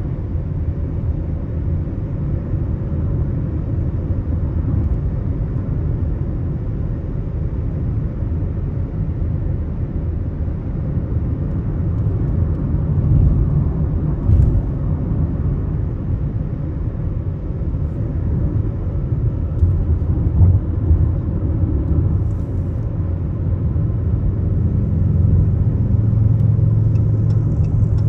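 A car driving on the interstate: a steady low rumble of road and engine noise, with a single brief knock about 14 seconds in.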